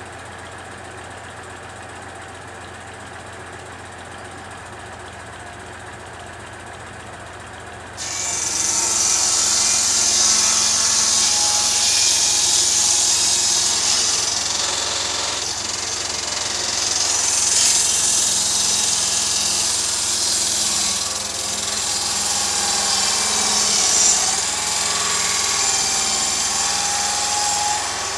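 Tractor engine running at idle. About eight seconds in, the tractor-driven circular saw bench starts up and stays loud with a high hiss and whine that swells and eases, over the engine's steady hum.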